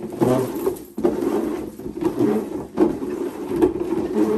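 Two upturned plastic boxes being slid and shuffled across a tiled tabletop: a scraping rub that stops and starts again a few times.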